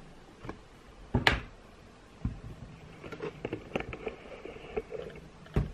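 Handling noise as a thick crocheted cowl is moved about close to the microphone: a sharp knock about a second in, softer knocks, and light scattered clicks and rustling.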